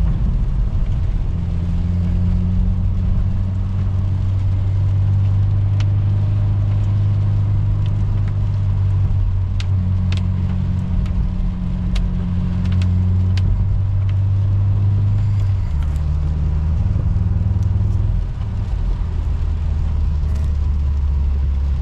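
Subaru WRX turbocharged flat-four engine and road noise from inside the cabin at highway cruise, a steady low drone whose note drops about three-quarters of the way through. The cylinder-3 misfire is still present despite the new plug and coil.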